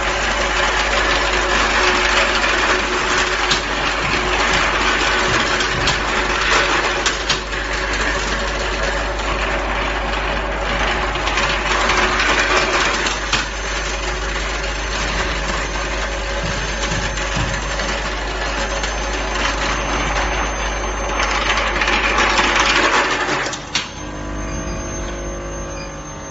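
Automatic billet feed line of an induction forging machine running: a dense, steady mechanical noise with scattered clicks of metal billets. It cuts off suddenly about 24 seconds in, leaving a quieter hum and a thin high whine.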